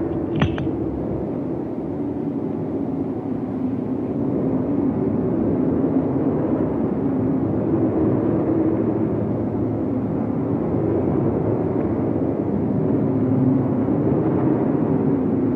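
Engine of a small open-cockpit racing sports car, likely a Lotus 23, running on the track as a steady drone. A sharp click about half a second in, from a stopwatch button being pressed.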